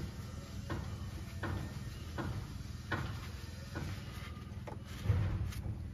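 Ratchet wrench clicking with each back-stroke, about one stroke every three-quarters of a second, as the mounting bolts of a transfer-case center differential lock actuator are run in. A dull thump about five seconds in.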